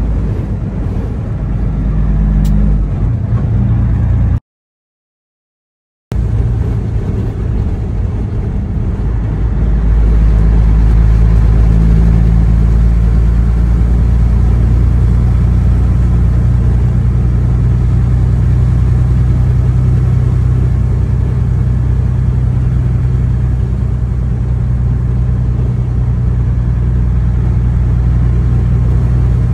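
Steady low drone of a semi truck's engine and road noise heard inside the cab while driving on the highway. The sound cuts out completely for about two seconds near the start, and it grows slightly louder about ten seconds in.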